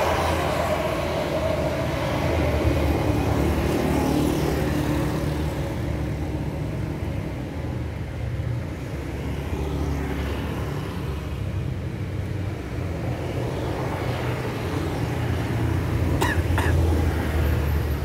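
Road traffic: a motor vehicle engine running steadily with a low hum and tyre and road noise. Two short high squeaks come near the end.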